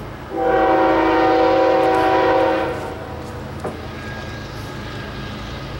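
Diesel locomotive air horn sounding one long blast of about two and a half seconds from a train approaching out of sight, over a steady low rumble.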